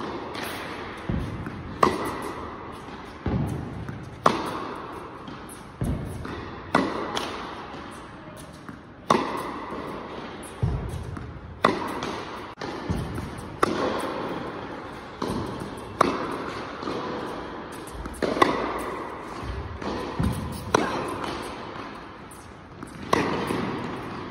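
Tennis rally on an indoor hard court: rackets striking the ball and the ball bouncing, a sharp pop every second or so, each trailing off in the echo of a large hall.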